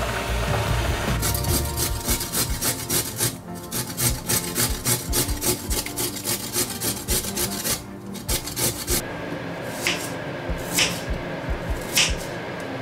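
A carrot rasped against a stainless steel grater in quick repeated strokes, several a second, stopping about nine seconds in. Then a knife cuts through an onion, with three sharp knocks on a plastic cutting board.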